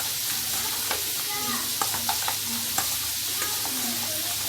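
A spoon stirring chopped salad in a bowl, with sharp clicks about once a second as it knocks against the bowl, over a steady sizzling hiss.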